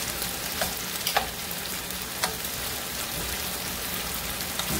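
Thin slices of marinated beef sirloin sizzling in hot oil in a frying pan, with a few sharp clicks of metal tongs against the pan as the meat is turned.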